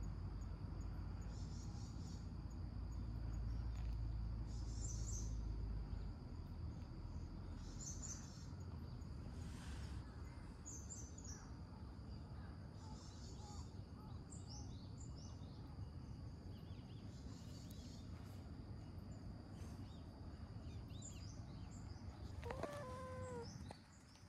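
Outdoor ambience: scattered small-bird chirps over a steady, high insect drone, with a low rumble during the first six seconds. Near the end, an orange tabby cat gives one short meow.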